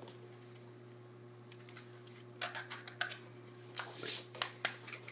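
Small plastic clicks and taps of batteries being fitted into a battery compartment, a loose run of them in the second half, over a steady low hum.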